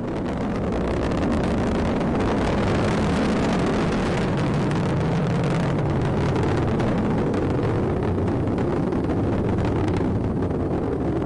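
Rocket engines of the Atlas V carrying the Starliner capsule during ascent: a steady, noisy rumble heard from the ground, building over the first second or so and then holding.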